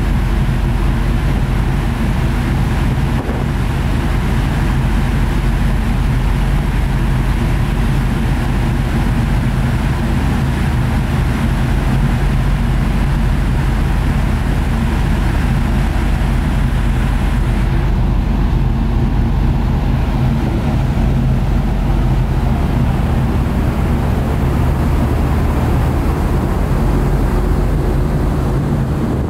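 Steady low drone of a ferry's engines, with a continuous rushing of wind and water over it.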